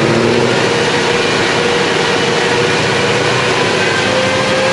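Mercedes CLK63 AMG's 6.2-litre V8 running loudly on a chassis dyno, its engine and exhaust note holding fairly steady with only a slight drift in pitch.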